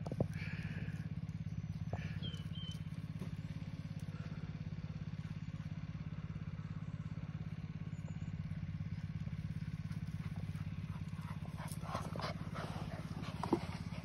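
A steady low engine hum runs throughout. Near the end, two terriers scuffle and play-fight close by, with a few short sharp sounds.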